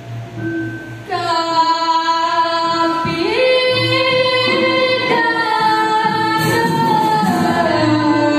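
A woman singing a Balinese pupuh Ginanti (tembang) melody in long held notes that slide from pitch to pitch, starting about a second in. A low pulsing tone sounds beneath the voice at times.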